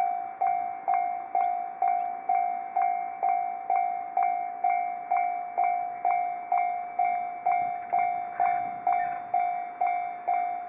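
Japanese railroad crossing warning bell ringing in an even, continuous repeat of about two dings a second, each ring fading before the next. It is the alarm that a train is approaching and the crossing is closing.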